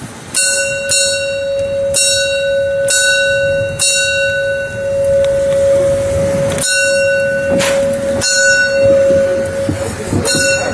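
A bell struck repeatedly at irregular intervals, roughly once a second with a pause midway, each stroke ringing on with overtones. Under the strokes a single steady tone is held throughout.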